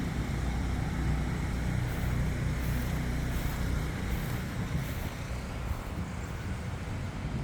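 A car's engine and road noise as a steady low rumble.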